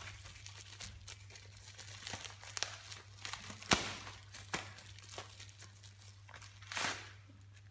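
Bubble wrap crinkling and crackling as it is handled and pulled off a small cardboard box, in irregular sharp crackles with the sharpest about halfway through and a longer rustle near the end, over a steady low hum.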